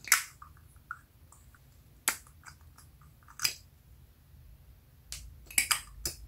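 Plastic lip gloss tubes being opened and closed: sharp clicks and pops as the applicator wands are pulled out of and pushed back into their tubes, about five in all, with small sticky ticks in between.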